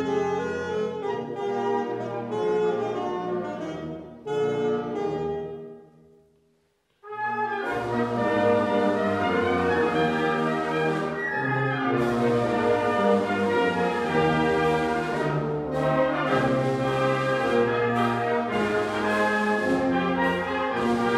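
Wind band playing a concerto for alto saxophone, with the saxophone soloist, an 1863 Gautrot Marques alto saxophone, heard against the band. About six seconds in the music fades to near silence, then comes back in abruptly with the full band.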